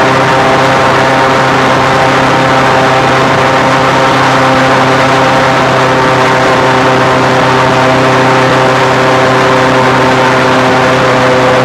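Airboat engine and air propeller running at speed: a loud, steady drone of several pitched tones, easing slightly lower in pitch near the end.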